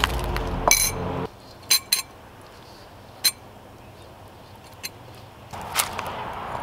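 Background music ends abruptly about a second in. It is followed by a few sharp, separate clinks of metal utensils against a carbon steel wok and a ceramic bowl as stir-fried vegetables are scraped from the wok into the bowl.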